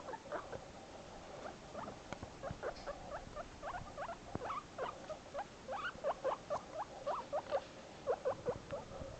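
Guinea pig squeaking over and over in short, quick downward chirps that come thickest in the middle. These are the calls he makes when separated from his cage mate.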